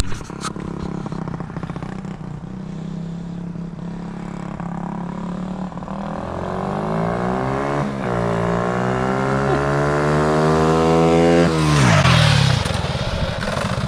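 Single-cylinder four-stroke ATV engine idling steadily, then revving up from about halfway through, dipping briefly once before climbing again. Near the end the throttle is cut and the pitch drops sharply, with a short rush of noise as it falls.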